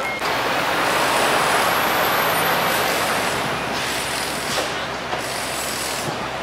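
A heavy truck on a city street: a broad rush of engine and road noise that comes in suddenly and slowly eases over a few seconds.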